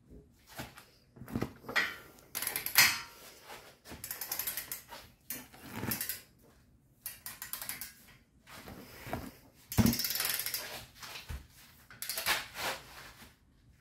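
Torque wrench ratcheting in a series of short strokes with pauses between, as a front brake caliper bracket bolt is tightened toward 190 ft-lb.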